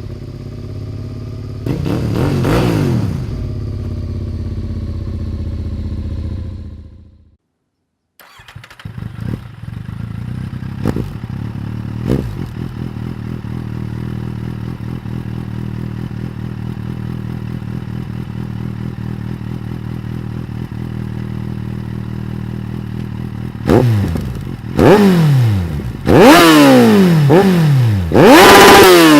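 2015 Kawasaki Z800's inline-four running through a GPR Furore exhaust with no dB killer, warmed up. It revs once near the start and then fades out briefly. It then idles steadily, and near the end it is blipped sharply several times, the loudest part.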